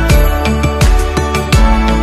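Background music with a steady beat and a pitch-dropping drum on each beat.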